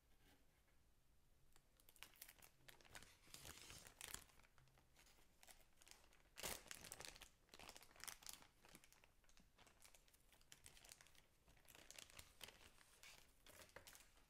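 Thin clear plastic packaging bag crinkling in irregular bursts as it is handled and pulled open, loudest about six and a half seconds in.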